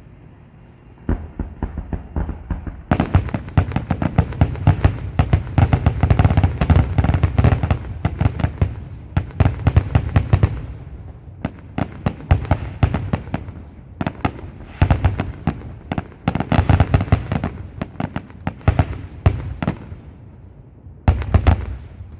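Aerial fireworks going off in a rapid barrage, many bangs a second, starting about a second in and coming in two long dense waves with a short lull between, then a last short cluster near the end.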